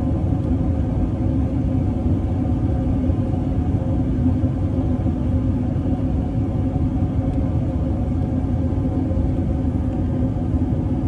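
Airbus A380 cabin noise during descent: a steady rumble with a constant low hum, heard from a window seat inside the cabin.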